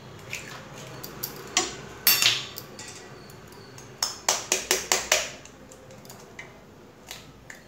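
Two eggs cracked one after the other by tapping the shells with a steel spoon over a small steel bowl. A few sharp taps come about two seconds in, then a quick run of about six taps around four to five seconds in.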